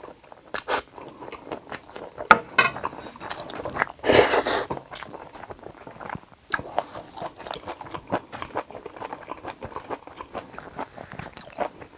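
Close-miked chewing of a mouthful of Jjapagetti noodles, with many small wet mouth clicks and smacks. There is one louder, longer burst about four seconds in.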